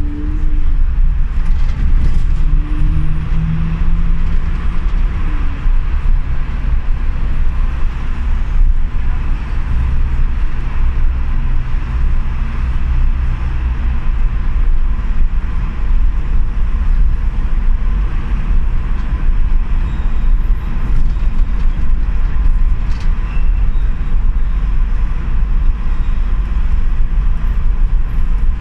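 City bus in motion, heard from inside: a steady low rumble of engine and road noise, with a few short whining tones sliding in pitch in the first few seconds.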